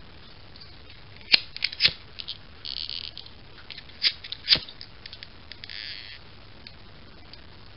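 Sharp metallic clicks and clinks in two clusters as a small brass spirit burner is handled, with two short hissy rasps from a disposable lighter being struck to light its wicks.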